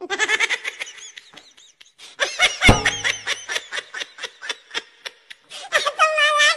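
Rapid laughter in short repeated bursts, with one dull thud about two and a half seconds in.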